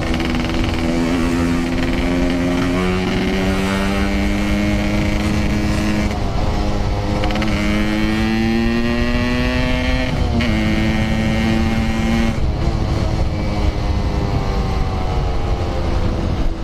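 Yamaha RX-King 135cc two-stroke motorcycle engine pulling under way, its pitch climbing slowly and dropping at gear changes about 3 and 10 seconds in, over steady wind and road rush.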